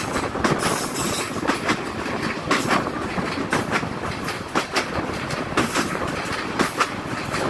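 Bangladesh Railway passenger train running at speed, heard from a carriage window: steady rushing rumble with the wheels' clickety-clack over rail joints, a double click about once a second.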